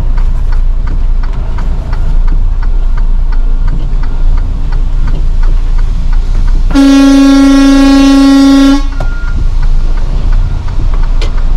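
Truck engine running steadily inside the cab, with a regular ticking from the hazard-light flasher. A little past halfway a vehicle horn sounds one loud, steady blast of about two seconds.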